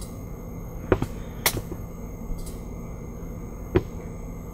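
Three short, sharp computer mouse clicks, about a second in, half a second later, and again near the end, over a steady low hum and hiss.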